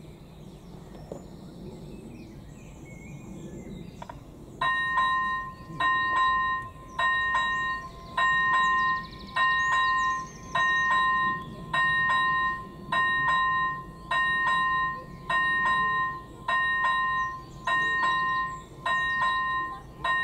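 Level-crossing warning bell of an AŽD 97 crossing signal (ZV02 electronic bell) sounding a repeating ringing tone a little more than once a second. It starts about four seconds in, after a quiet outdoor background, and is the crossing's warning that a train is approaching.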